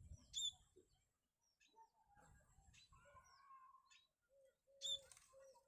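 Small birds chirping faintly, with a few sharp high chirps and short falling notes, and a run of low steady cooing notes near the end.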